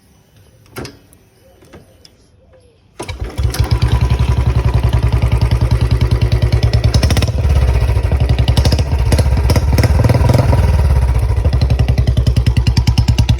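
A few faint clicks, then about three seconds in a Royal Enfield Bullet 350's single-cylinder engine starts and runs with a steady, rapid thump. It exhausts through an aftermarket Chhota Punjab silencer with the stock bend pipe.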